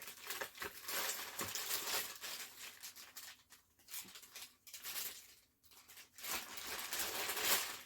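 Packaging being crinkled and rustled in irregular bursts as an item is handled and unwrapped.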